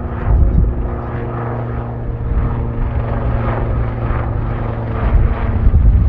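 Airliner engines running on the ground: a steady droning hum with a held low tone. It is mixed with heavy, uneven rumble from strong wind buffeting the microphone, which surges near the end.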